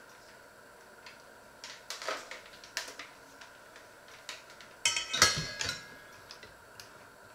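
Stainless steel pots and utensils clinking and knocking as they are handled, a few separate clinks first and then a louder burst of clattering with a brief metallic ring about five seconds in.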